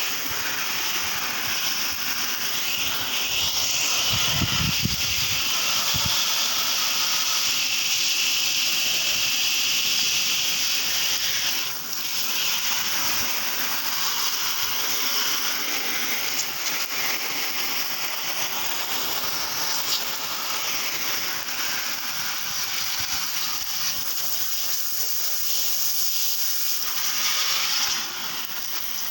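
Steady rushing hiss of sea water, with a few low thumps about four to six seconds in.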